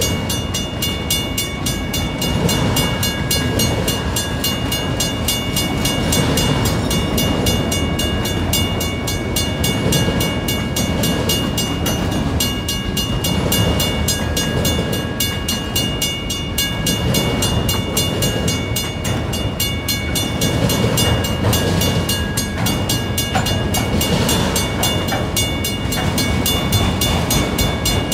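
Autorack freight cars rolling past at speed: a steady rumble and clatter of steel wheels on rail that swells and ebbs as each car goes by, with a steady high ringing over it.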